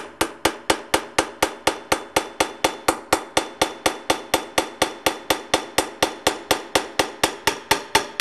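Small ball-peen hammer striking a metal drift in a steady, rapid rhythm of about four blows a second, each blow ringing briefly. The blows drive the tight-fitting front end cover off a rotary vane vacuum pump's housing.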